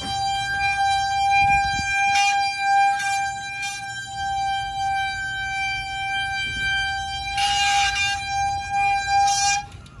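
Road bike disc brake squealing as the bike rolls slowly: one loud, steady, high-pitched squeal that holds for nearly ten seconds and cuts off near the end, with a few short hissing scrapes over it. The squeal is the sign of contaminated pads and rotor that a spray of disc brake cleaner has not cured; the owner thinks the pads are too far gone.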